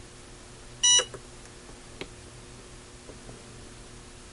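DH30 battery spot welder's buzzer giving one short beep about a second in while its tips press a nickel strip onto a battery cell for a weld. A single sharp click follows about a second later.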